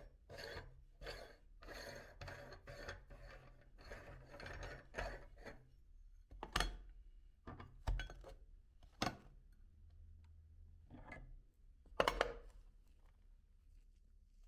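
Meat grinder running with a low motor hum while chocolate candy is crunched and forced through its cutting plate, a rapid gritty rubbing for about six seconds. After that come several separate knocks, the loudest near the end.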